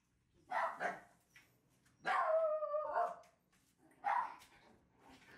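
Shiba Inu puppy barking: two quick barks, then a longer drawn-out bark about two seconds in, and one more short bark a second later.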